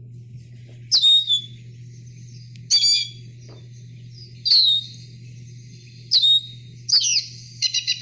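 Lesser goldfinch giving its plaintive, downward-slurred whistled calls, five of them spaced about every one and a half to two seconds, then a quick run of notes near the end. A steady low hum lies underneath.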